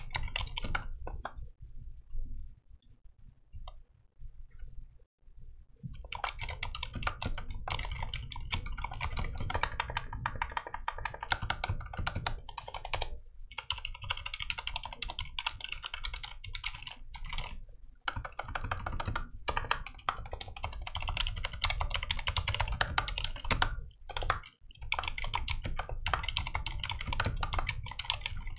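Typing on a Durgod Venus 60% mechanical keyboard with an aluminium case and Cherry MX Silent Red switches. A few separate keystrokes come first, then steady, fast typing from about six seconds in, with a few short pauses.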